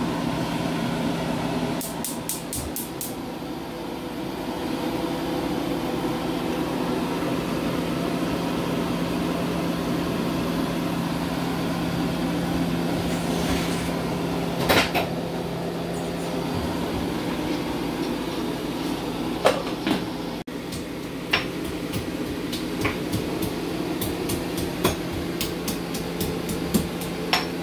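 Steady motor hum with a fixed low tone in a kitchen. About two seconds in comes a quick run of about six clicks, and scattered sharp knocks and clicks of pans and utensils follow in the second half.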